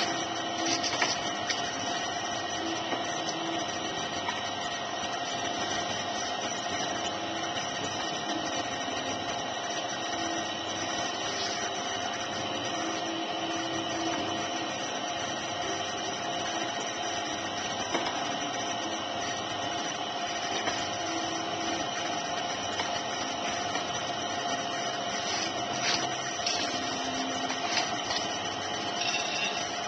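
Potter's wheel running steadily: a constant motor hum with a steady whine, while wet clay is thrown on the spinning wheel head.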